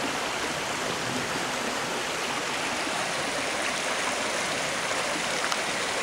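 Steady rushing hiss of a small stream's running water, even throughout.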